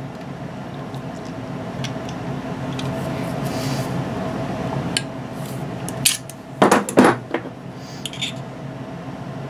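Small metal clicks and clinks from a stand mixer's hinge latch being handled and snapped to test its catch, the loudest cluster about two-thirds of the way through. A steady hum runs underneath.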